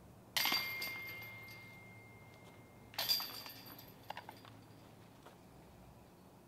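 Disc golf putts hitting a metal chain basket. The first crashes into the chains and leaves a ringing metallic tone for a couple of seconds. About three seconds in, a second putt clashes into the chains, followed by a few light clinks.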